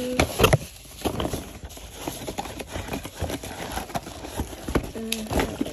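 A cardboard flat-iron box being handled and opened by hand: knocks, taps and scraping of the packaging, with a couple of louder knocks about half a second in.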